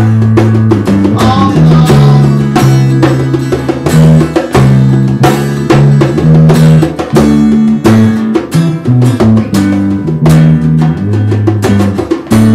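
Acoustic band playing: a strummed acoustic guitar, an electric bass holding low notes that change about once a second, and a hand drum struck with bare palms.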